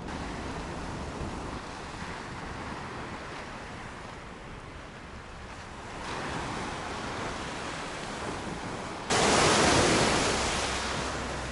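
Sea surf washing onto a pebble beach, with wind on the microphone. About nine seconds in a wave breaks loudly, starting suddenly and dying away over a couple of seconds.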